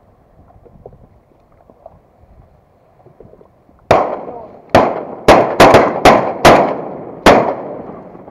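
A volley of about eight shotgun shots in quick succession, starting about four seconds in and ending about three and a half seconds later, each shot trailing off in a long echoing decay.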